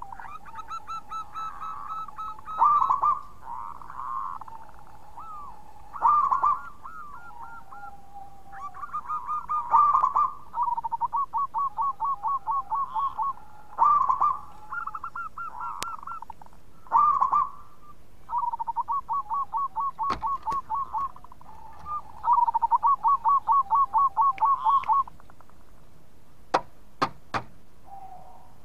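Zebra dove (perkutut) cooing: loud accented coos alternating with long rolling runs of rapid staccato coo notes, repeated several times. A few sharp clicks come near the end.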